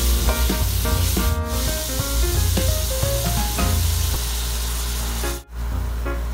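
Food sizzling in a frying pan, a steady hiss, under background music with a bass line; both drop out for a moment near the end.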